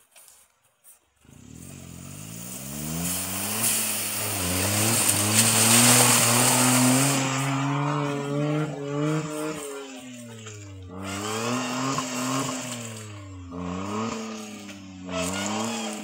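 Suzuki Jimny's engine revving hard under load as its wheels churn through deep mud, starting about a second in; the revs climb and drop again and again, with a loud rushing of spinning wheels and mud during the heaviest stretch a few seconds in.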